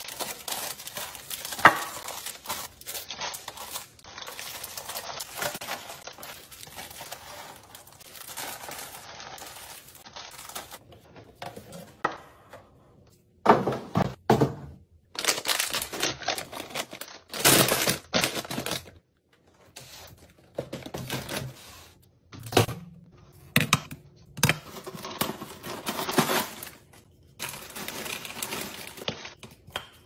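Packaged snack pouches crinkling and clicking as they are handled and dropped into a clear plastic bin, with a cardboard box rustling. From about the middle on there are louder separate bursts of rustling and knocking.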